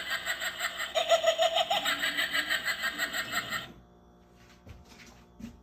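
Motion-activated Halloween pumpkin decoration playing a recorded laugh through its small built-in speaker, in quick pulses, cutting off suddenly a little over three and a half seconds in. A few faint knocks follow near the end.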